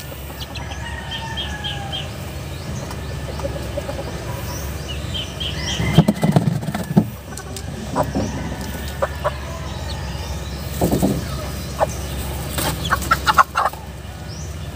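A young chicken with coryza struggles while salt water is dripped into its infected eye, flapping its wings and clucking in short spells around the middle and again near the end. Small birds chirp in the background.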